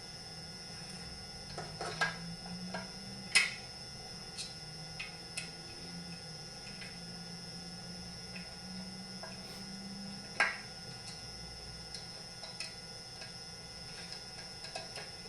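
Scattered metal clicks and knocks of hand tools and chainsaw parts as the saw is reassembled, a few seconds apart, the loudest about three and a half seconds in and another about ten seconds in, over a steady electrical hum.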